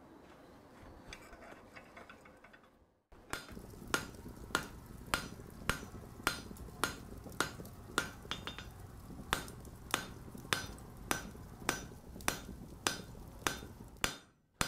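Blacksmith's hammer blows ringing on steel in a steady rhythm, a little under two strikes a second with one short pause, over a low steady rumble. They start about three seconds in, after faint workshop room sound and a brief silence.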